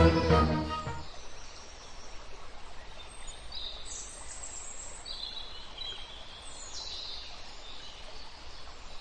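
Background music fades out about a second in. It gives way to faint outdoor background hiss, with a few brief high-pitched chirps in the middle of the stretch.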